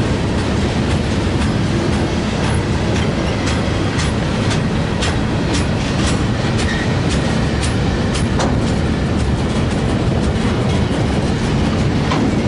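Freight train cars rolling past: a steady rumble of steel wheels on rail, with many sharp clicks and knocks as the wheels run over the track.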